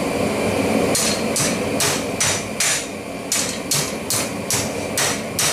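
Hand hammer striking a red-hot steel bar on a steel anvil, about two to three blows a second, bending the bar down over the anvil's edge into a right angle. A steady low rushing noise runs underneath.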